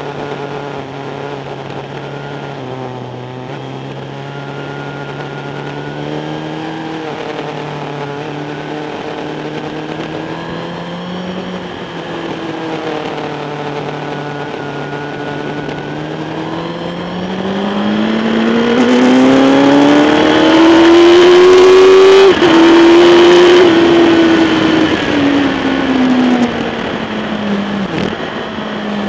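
Sport motorcycle engine heard from an onboard camera under the fairing, its revs rising and falling through the corners. About two-thirds in the engine climbs hard in pitch to its loudest point, with wind rush. After a brief break at the peak, the engine note falls steadily as the bike slows.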